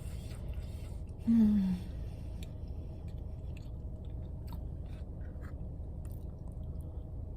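A person chewing a chicken sandwich, with small wet mouth clicks. About a second in comes a short hummed "mm" that falls slightly in pitch, the loudest sound here.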